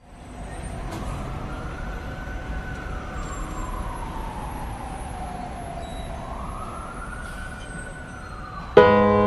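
Emergency-vehicle siren in a slow wail, heard distant over a low rumble of traffic: it rises, falls over several seconds, then rises again. Near the end a sustained piano chord comes in loudly and suddenly.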